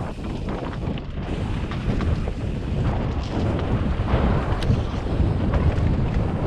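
Wind buffeting the microphone of a mountain bike's ride camera as it descends a dirt singletrack, mixed with the rumble of the tyres on the trail. A few sharp clicks and rattles from the bike come through, one clearer a little past halfway.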